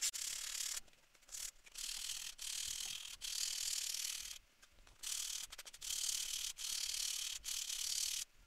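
Coarse P100 sandpaper rubbed by hand across the face of a round wooden blank, a first rough pass to smooth the surface. It goes in strokes of about half a second to a second each, with short breaks between.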